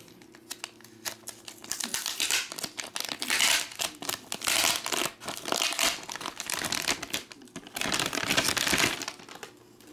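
Gold foil trading-card pack wrapper being peeled open and crinkled by hand. It is quiet for the first couple of seconds, then crackles in several loud bursts.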